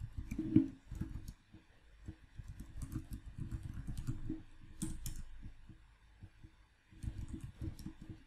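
Typing on a computer keyboard: quick runs of keystrokes, with a pause of about a second a little past halfway.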